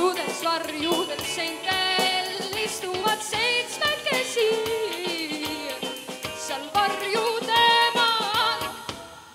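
Female vocalist singing with a live rock band of electric guitar, bass guitar, keyboards and drums.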